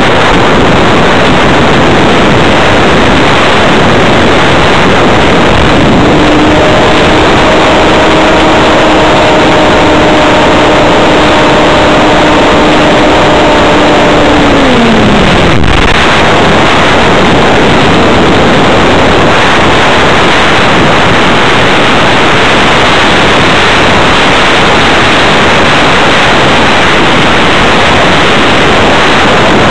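Loud airflow rushing over an RC model plane's onboard camera microphone in flight. The electric motor and propeller whine comes in at a steady pitch a few seconds in, then winds down in pitch and stops about halfway through as the motor is cut. The model glides on with only the wind rush.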